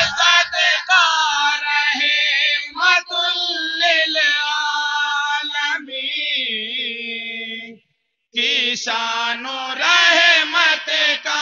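A group of men chanting an Urdu naat together in a sung, drawn-out melody. The voices break off for about half a second roughly two-thirds of the way through.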